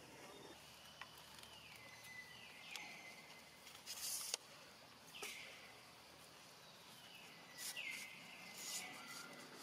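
Faint forest ambience with a steady hiss. Several times, a high call slides down in pitch, then levels off and holds briefly, and a few short hissy bursts come about 4 s and 8 s in.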